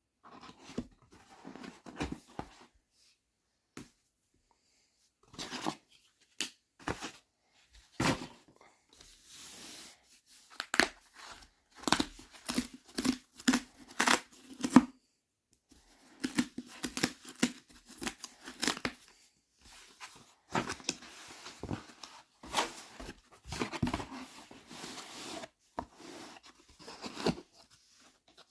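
A book's packaging being torn open by hand, in irregular rips and crinkles with a short pause a few seconds in.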